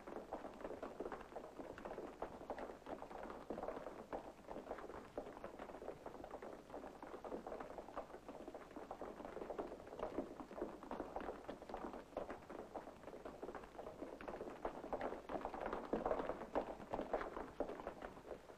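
Tramping and shuffling feet of a large column of marching men on a paved street, a dense, irregular patter of many footsteps that grows a little louder about three-quarters of the way through.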